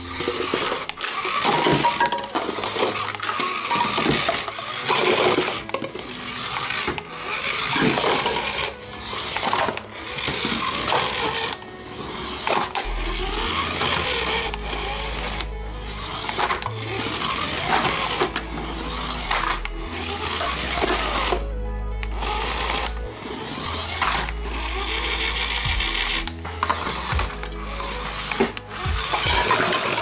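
Toy remote-control car's small electric motor whirring in short bursts, starting and stopping every second or so as it is driven back and forth, with music playing along.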